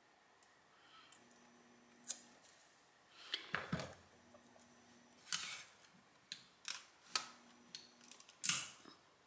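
Heat tape pulled from a desktop tape dispenser and torn off, with small clicks and rustles of paper and blanks being handled: a string of short sharp snaps, the loudest and longest near the end.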